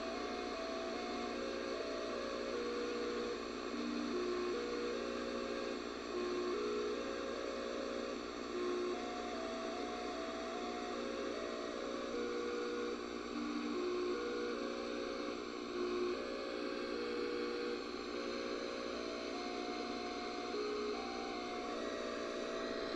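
An AM radio picking up a computer monitor's electromagnetic emissions, driven by Tempest for Eliza's stripe patterns, plays a simple tune of single steady tones one note at a time. The tune sits under a constant hiss and mains-like hum from the radio.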